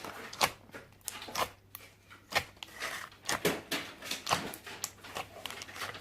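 Slime being poked and squeezed in its container: irregular sticky clicks and squelches, a few each second.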